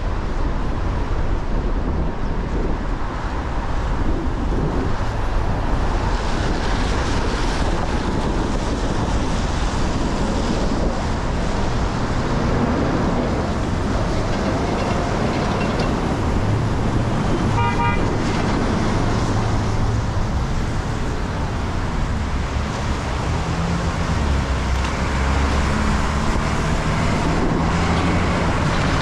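Steady traffic and road noise from a vehicle driving on wet city streets, its tyres hissing on the wet asphalt. A short car horn toot sounds a little past halfway.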